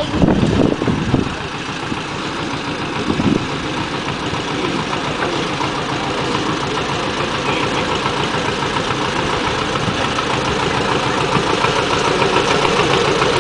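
Small 18-inch gauge narrow-gauge diesel locomotive running slowly as it approaches, its engine noise steady and growing gradually louder. A few brief louder sounds stand out in the first second or so.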